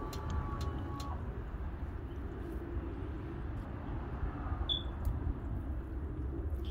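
RV auto-leveling system running as its jacks extend: a steady low motor drone, with a higher whine that cuts off about a second in.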